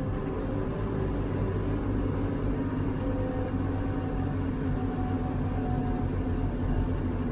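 Heavy diesel vehicle engine running steadily under way, with a low rumble and a steady droning tone.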